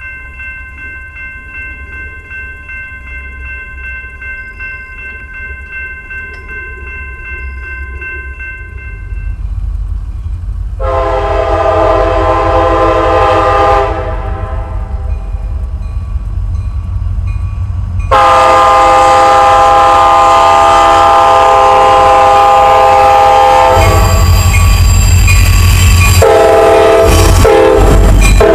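CSX diesel freight locomotive sounding its air horn: a short blast of about three seconds, then after a pause a long blast held to the end, as the train approaches and passes. Underneath, a heavy low rumble of the engine and wheels builds and is loudest as the locomotive goes by. Before the horn there is a faint steady ringing.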